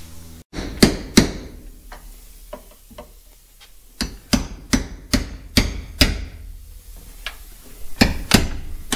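Sharp metal knocks and clanks while a stripped pickup-truck door is worked on. A couple of knocks come early, then a quick even run of about seven strikes, roughly three a second, in the middle, and two more near the end, each ringing briefly.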